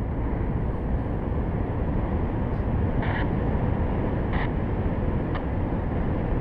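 Steady rush of wind buffeting the camera microphone in paraglider flight. Three short, faint, high beeps sound over it in the second half.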